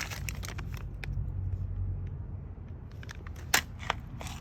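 Light metallic clicks and rattles from handling parts in the engine bay, over a steady low rumble.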